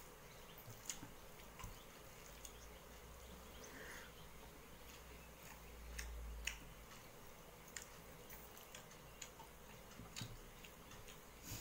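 Faint eating sounds of a person eating rice by hand from a steel plate: scattered small clicks from fingers mixing the food and from chewing, over a quiet room, with a low hum in the first half.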